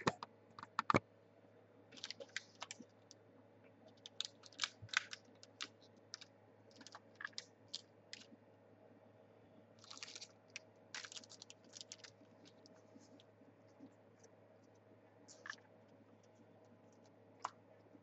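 Faint, irregular clicks and taps in short clusters, busiest in the first twelve seconds and sparse after that, over a steady low hum.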